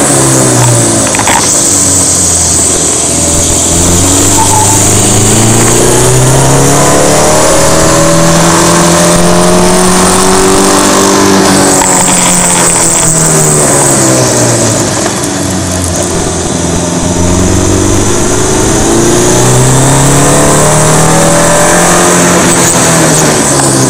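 Car engine running hard on a winding hill climb, its pitch climbing through several long rises and easing off again between bends, with a steady rush of wind and road noise.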